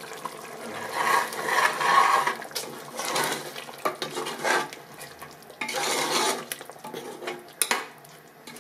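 A metal spoon stirring curd into a thick mutton masala in an aluminium pressure cooker, scraping against the pot with a few sharp clinks on its rim and sides.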